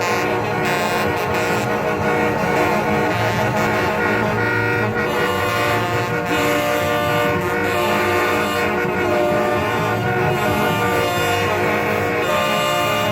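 Many truck air horns blaring at once in long, overlapping notes that make a continuous, clashing chord.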